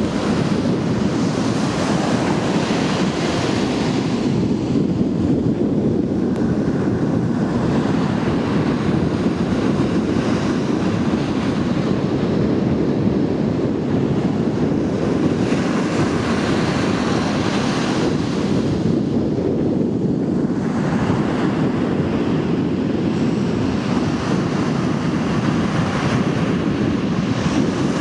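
Ocean waves breaking and washing up the shore, a continuous surf hiss that swells and eases every several seconds, over a steady rumble of wind on the microphone.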